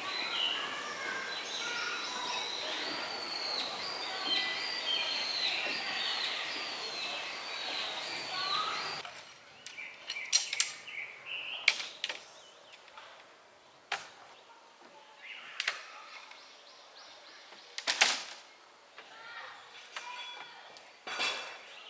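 Birds chirping and singing steadily, with short falling calls repeated several times a second. About nine seconds in the sound changes abruptly to a quieter stretch with a few scattered knocks and clacks and faint chirps.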